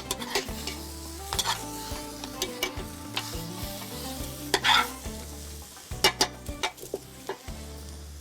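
Chicken pieces frying in oil in a pot, sizzling, while a spoon stirs them and knocks against the pot every second or so.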